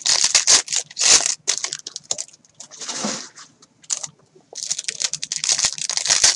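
Foil wrapper of a trading card pack crinkling in short bursts as it is handled, then crinkling steadily over the last couple of seconds as it is torn open.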